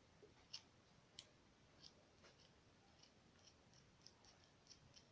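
Near silence, with about ten faint small clicks and ticks scattered through it from handling small model-making parts.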